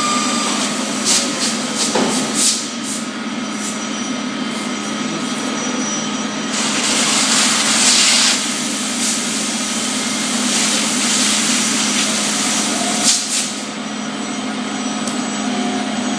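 Large CNC vertical lathe running under cut: a steady machine hum under the hiss of metal being machined, which swells for about two seconds midway, with a few sharp clicks.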